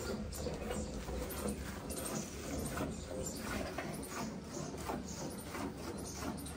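Cow being milked by hand: quick, slightly uneven squirts of milk into a pail, about two a second.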